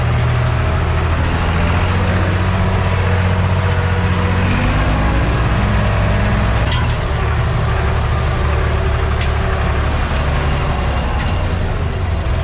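A farm tractor's diesel engine runs steadily under load, heard from inside the cab while it pulls a disc harrow. The engine note drops slightly about four and a half seconds in.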